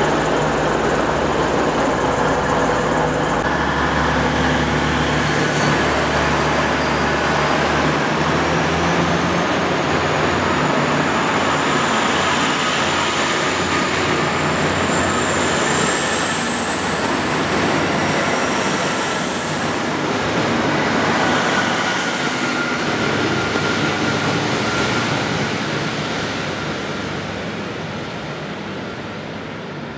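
Two coupled V/Line VLocity diesel multiple units pulling away from the platform. The engines run loudly with a high whine that climbs in pitch as the train accelerates. The sound fades over the last several seconds as the train draws off.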